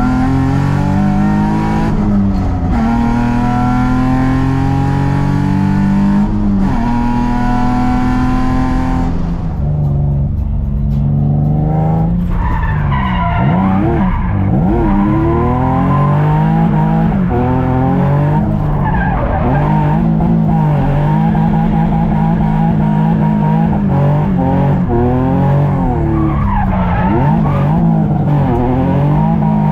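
Infiniti G35's 3.5-litre V6 running through a cheap aftermarket eBay exhaust, accelerating hard with the pitch climbing and dropping at gear changes about two and six seconds in. Later the revs rise and fall again and again.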